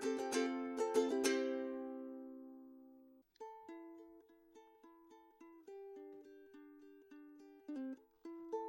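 Enya E6 solid maple tenor ukulele played acoustically. A few strummed chords ring out and fade over about two seconds. After a short break, softer single notes are picked one at a time.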